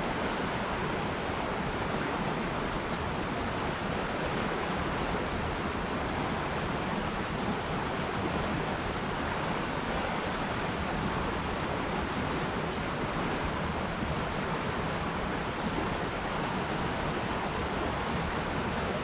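River water flowing, a steady, even rush of sound with no breaks or changes.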